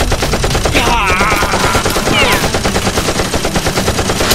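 Machine-gun fire sound effect: a fast, even stream of shots.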